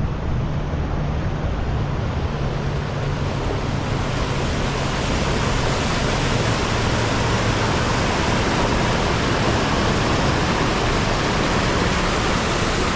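Steady rush of falling water, growing louder and hissier about four seconds in, with a low hum underneath that fades out midway.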